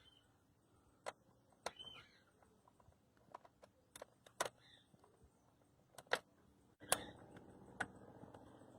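Scattered sharp clicks of a 10 mm wrench working the nut on a Fiat Palio door-check lever bolt, irregular, about a dozen in all.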